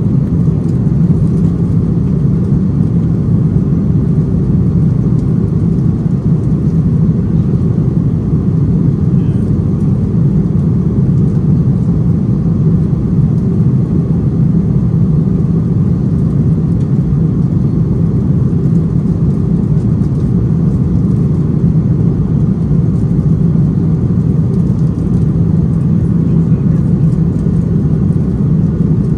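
Steady cabin noise inside an Airbus A330-300 in flight, heard from a window seat beside the wing and engine: a low, even rumble of the jet engines and airflow that holds steady without change.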